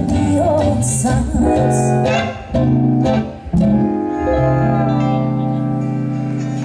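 Live acoustic country band: a woman singing over mandolin, steel guitar and upright bass, then the band ends the song on a final chord that is held and rings out for about three seconds.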